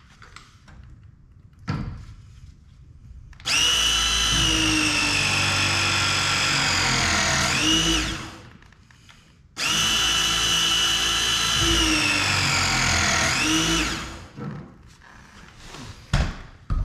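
Battery-powered ProPress tool pressing copper pipe fittings twice, each press a motor run of about four seconds whose pitch slowly falls and then rises quickly at the end.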